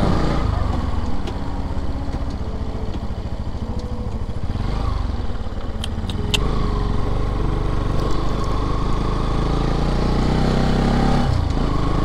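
Motorcycle engine running at low road speed, getting a little louder about six seconds in, with a few sharp ticks around the same time.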